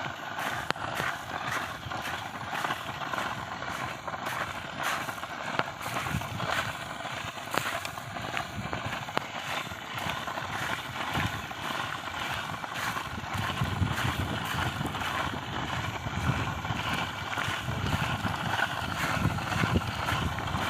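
Corn being harvested: dry corn leaves and stalks rustling, with many irregular snaps and knocks.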